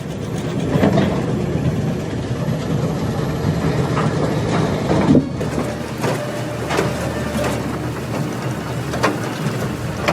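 A mobile debarking machine running heavily, with a steady engine sound and repeated sharp knocks and clatter through it.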